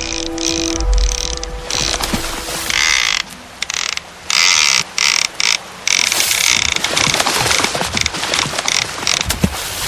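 Fishing-reel ratchet sound effect: rapid mechanical clicking and whirring that comes in stuttering bursts with abrupt gaps, ending in a run of sharp clicks.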